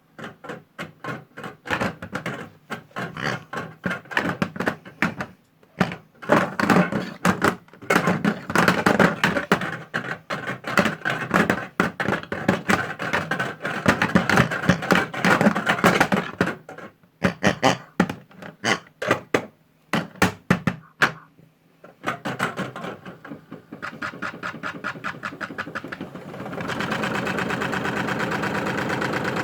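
Modified toy washing machine running: a small motor with a rapid clattering that stops and starts several times, then settles into a steady buzz near the end.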